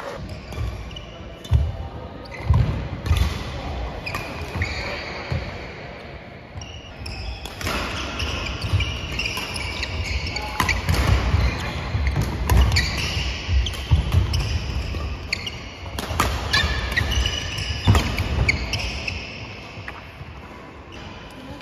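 Badminton doubles rally: rackets strike the shuttlecock with sharp cracks, shoes squeak on the wooden court floor and feet thud. The play is busiest through the middle, with fewer sounds at the start and near the end.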